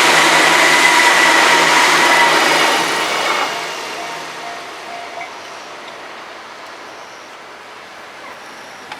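Royal Express train passing at speed: a loud rush of wheels on rail with a steady high whine, which fades away about three and a half seconds in as the train moves off.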